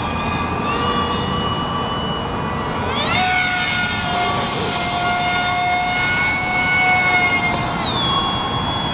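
Electric motor and propeller of a radio-controlled model airplane whining overhead. The pitch climbs sharply about three seconds in as the throttle opens, holds steady, then falls near the end as the throttle eases off. A steady rush of wind noise runs underneath.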